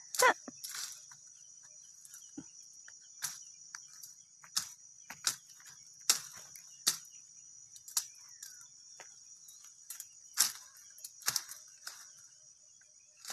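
Insects chirring steadily in a high band, over a dozen or so sharp snaps and crackles of cassava stalks and leaves as the plants are broken and pulled up, the loudest right at the start and about ten seconds in.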